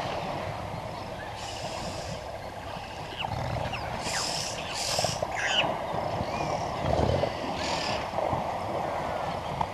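African elephants in a waterhole: deep low rumbles about three and a half seconds in and again about seven seconds in, among splashes of water, with birds chirping.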